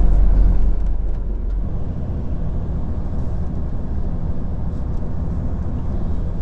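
Moving bus heard from inside the cabin: a steady rumble of engine and road noise, with the deepest rumble easing off about a second and a half in.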